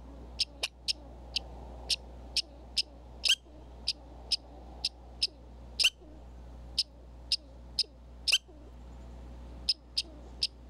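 Red squirrel calling: a string of short, sharp chirp-like calls, about two a second, with a few louder calls that drop in pitch and a brief pause near the end.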